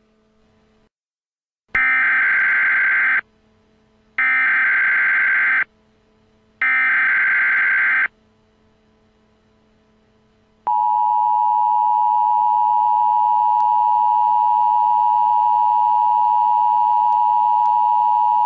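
Emergency Alert System header: three bursts of SAME digital data tones, each about a second and a half long with a second's gap, followed by the steady two-tone EAS attention signal lasting about eight seconds. Together they signal the start of an emergency alert, here a blizzard warning.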